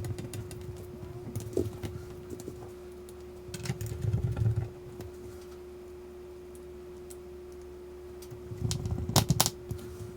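Small screwdriver and tiny screws clicking and tapping against a MacBook Air's aluminium bottom case as the case screws are driven in, in a few short clusters, the loudest near the end, over a steady faint hum.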